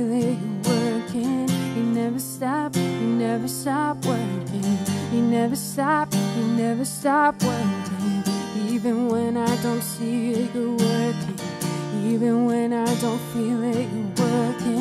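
Strummed acoustic guitar accompanying a woman's voice singing a slow melody with a slight vibrato.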